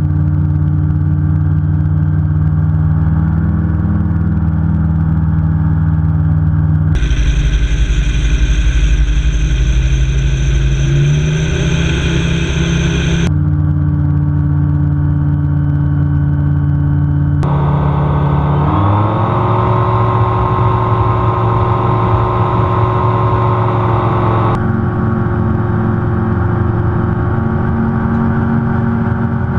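Engine and propeller of a Celier Xenon gyroplane in flight, heard from inside its enclosed cockpit: a loud, steady drone. Its pitch rises a little twice, and its tone changes abruptly a few times, as if the sound is cut.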